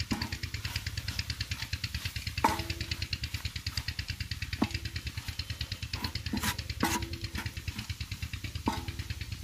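Wooden spoon stirring mutton keema on a large iron tawa, with several sharp knocks and scrapes against the griddle, some leaving a short metallic ring. Under it runs a steady, fast, even pulsing like an engine running in the background.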